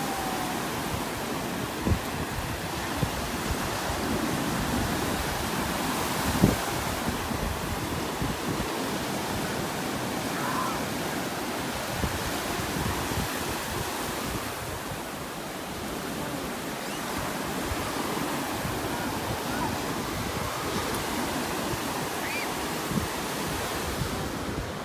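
Ocean surf breaking and washing up the sand as a steady rush, with a few short thumps now and then and faint distant voices.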